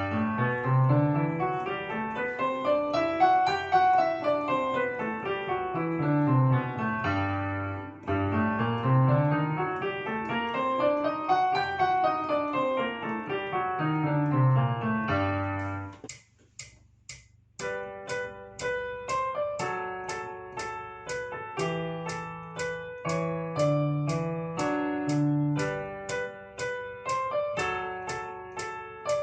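Piano music: two matching phrases of notes running up and down, then, about sixteen seconds in, a short break and a new section of chords over a steady ticking beat.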